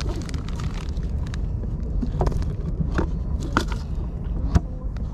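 Handling noises from a plastic bag and a plastic cooler box: a few sharp clicks and knocks as the bag is moved and the lid is handled, the loudest one near the end, over a steady low rumble.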